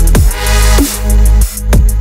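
Electronic dance music with a heavy bass and repeated falling pitch sweeps.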